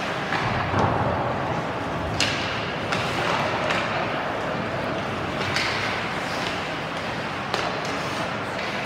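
Ice hockey game in an echoing rink: a steady hum of skates and crowd, with a few sharp clacks of sticks and puck, the clearest about two seconds in and near the end.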